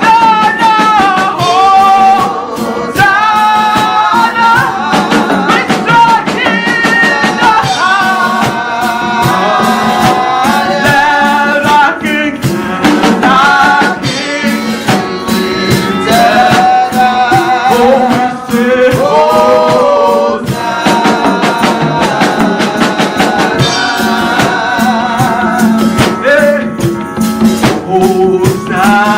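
Gospel praise singing over a busy, steady rhythm of shakers and tambourine.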